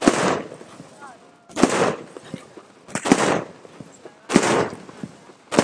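Chronos 268-shot fireworks cake firing: five loud aerial shell bursts about one and a half seconds apart, each with a short echoing tail, and smaller pops between them.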